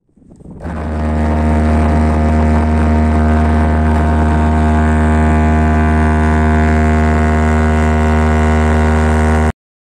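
Container ship's signal horn with a large trumpet bell sounding one long, loud, deep blast, rich in overtones. It swells up over about the first second, holds a steady pitch, and cuts off abruptly near the end.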